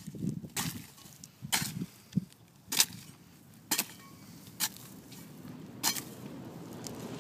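A jimador's coa, a long-handled, round-bladed steel cutting tool, strikes an agave heart again and again, chopping off its leaves. There are about six sharp chops, roughly a second apart.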